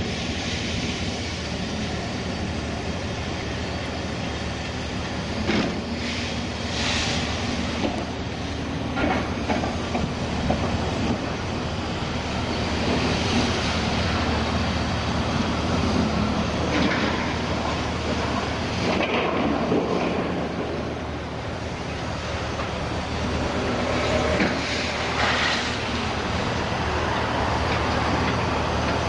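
Liebherr 954 scrap handler working a scrap pile: a steady machine drone with metal clattering and scraping from its grab every few seconds.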